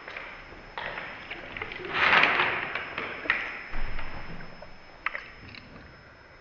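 Paper sandwich wrapper crumpled and rustled in the hands, in irregular crackly bursts, loudest about two seconds in, with a few sharp knocks.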